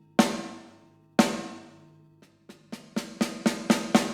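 Gretsch Catalina Club 14 x 5.5 inch snare drum, tuned medium and muffled with a Remo gel pad, struck with drumsticks through studio processing with a long reverb tail. Two single backbeat hits about a second apart, then a quick run of about eight hits, speeding up into a fill near the end.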